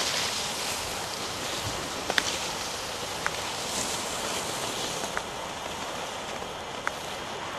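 Steady rushing wind noise on the microphone, with a few light, sharp clicks scattered through it.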